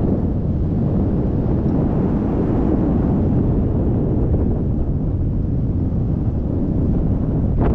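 Strong wind buffeting an action camera's microphone, a steady low rumble, with a brief sharper rustle near the end.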